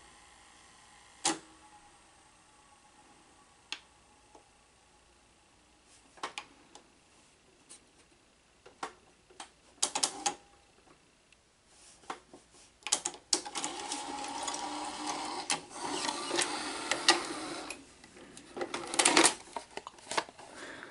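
NEC VC-N20EU Betamax VCR's mechanism giving scattered sharp clicks, then a few seconds of steady motor whirring from about halfway in, with more clicks near the end. The tape won't play, which the owner takes for the capstan not working.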